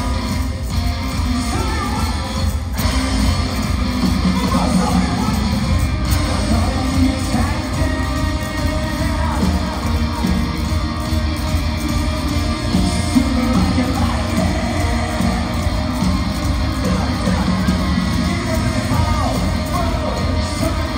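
Rock band playing live in a large arena, recorded from the audience: drums, electric guitars and a singing voice, loud and steady.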